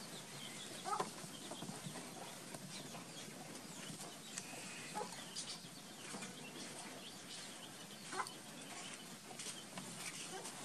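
Scattered short animal calls over a steady background hiss, with the clearest ones about a second in and again near eight seconds.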